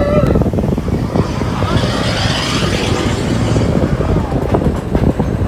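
Seven Dwarfs Mine Train roller coaster car rolling along its steel track: a steady low rumble with an irregular clatter of wheels on the rails.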